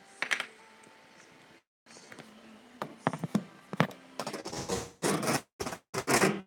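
Handling noise as the camera is picked up and moved: scraping and rubbing against the microphone, with several sharp knocks about three seconds in, growing loudest in the last two seconds.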